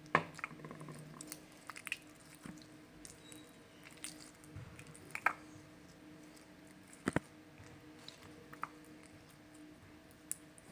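Slime being squeezed and poked by hand, making irregular wet squishes and small sticky clicks and pops, with the sharpest pops just after the start and about seven seconds in.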